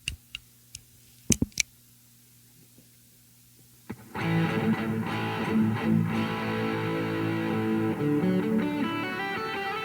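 Electric guitar played through a Revv G3 high-gain distortion pedal. A near-silent pause broken by a few sharp clicks gives way about four seconds in to distorted playing: ringing chords, then quicker single notes near the end.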